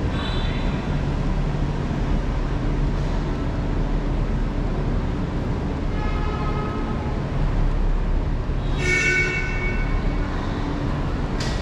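Hanoi Metro train on the Cat Linh–Ha Dong line running, a steady low rumble. Brief high-pitched tones come through about six and about nine seconds in.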